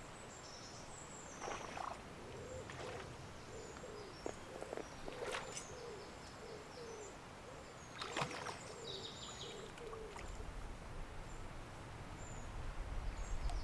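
A bird calling in a run of short, low hooting notes, with small birds chirping higher up and a few sharp clicks between them.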